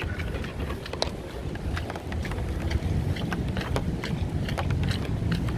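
Rainy city street ambience: a steady low rumble of traffic and wind on the microphone, with scattered sharp ticks throughout.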